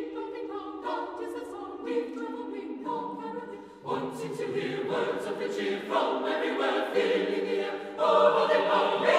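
Choral music: a choir singing sustained chords that change about once a second, swelling louder about four seconds in and again near the end.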